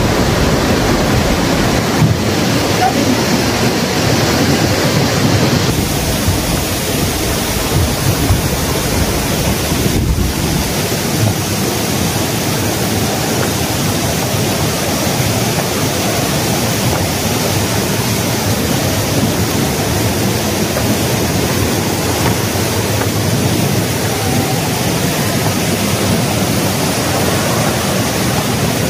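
Steady, loud rush of fast-flowing water, shifting slightly in tone a few times.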